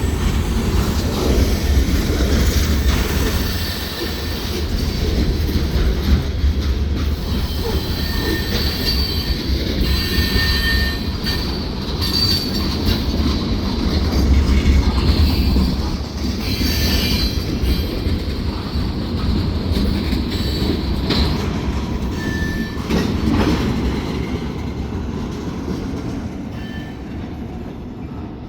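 Freight train's cars rolling past on the rails with a steady low rumble, the wheels squealing briefly several times; the sound fades over the last few seconds as the train moves away.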